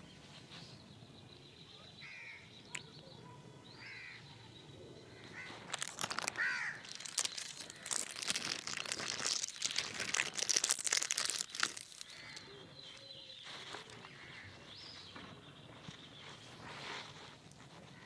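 Thin clear plastic bag crinkling as it is opened and handled for the rubber bands inside, a dense crackle from about six to twelve seconds in.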